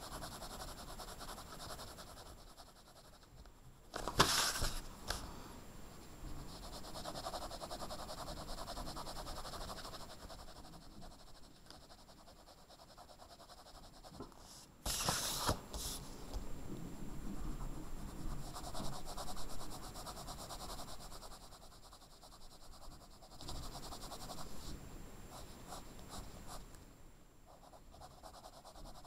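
Blue coloured pencil shading back and forth on paper: a soft, scratchy rubbing in long stretches with short pauses between them. Two louder, brief rustles come about four seconds in and again around fifteen seconds in.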